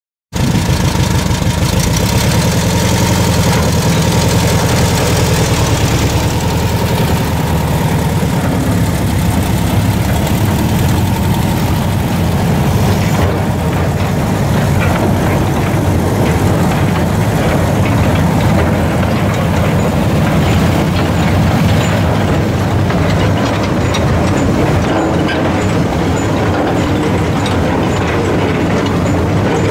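Small narrow-gauge field-railway locomotive's engine running steadily as it hauls a train of steel tipper mine wagons. From about halfway through, the wagons' wheels clatter and click over the light track as they roll past.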